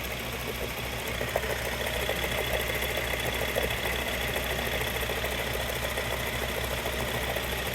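Mahindra Scorpio running with a steady high whine and light irregular rattle from the gearbox, the whine growing louder about a second and a half in. The mechanics take the noise for a failed gearbox bearing, with synchro noise as well.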